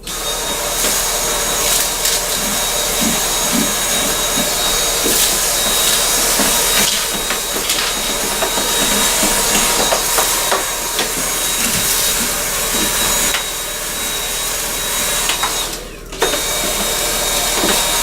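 Dyson Cinetic Big Ball Multifloor canister vacuum running: a steady rush of air with a thin high whine over it, and small clicks and rattles of debris being sucked up. Near the end it drops away for a moment and comes straight back.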